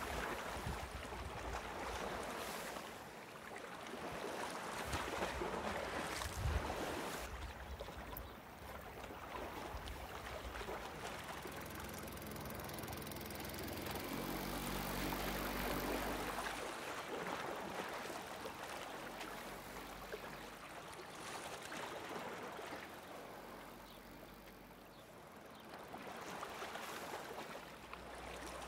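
Water lapping and trickling around a canoe, with a single knock about six and a half seconds in.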